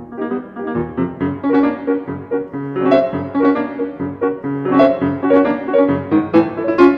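Background piano music, with quick notes several times a second.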